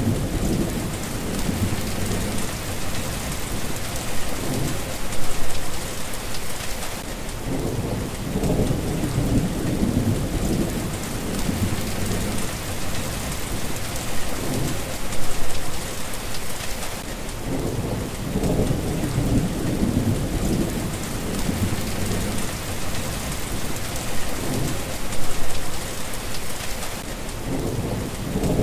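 Steady rain falling, with low rolling thunder rumbling underneath that swells and fades about every ten seconds.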